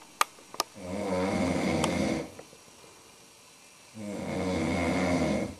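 A man snoring in his sleep: two long snores, each about a second and a half, a couple of seconds apart. Two short sharp clicks come just before the first snore.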